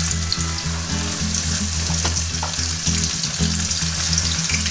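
Floured alligator ribs frying in hot vegetable oil in a pan, with steady sizzling and crackling as the pieces are laid in. A low hum runs underneath, breaking off now and then.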